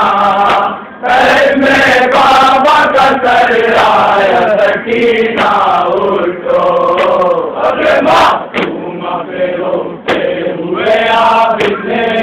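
Male voices chanting a Shia noha (mourning lament), a lead reciter with a group of men joining in. Sharp slaps of chest-beating (matam) run through the chant.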